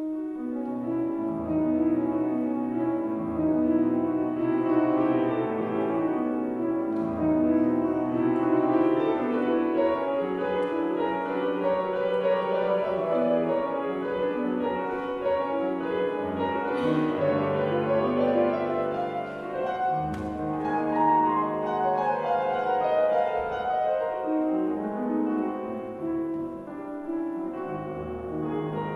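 Solo grand piano playing a classical piece, a continuous run of notes.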